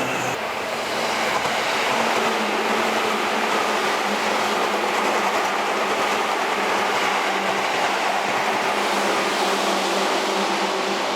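Seibu 6000 series aluminium-bodied electric commuter train running on the track: a steady rush of wheel and rail noise with a faint steady hum beneath it.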